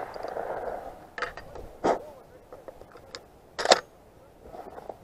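The fading echo of a shotgun blast rolls off over the field, followed by a few sharp mechanical clacks as the shotgun is lowered and handled, the loudest a quick double clack near the end.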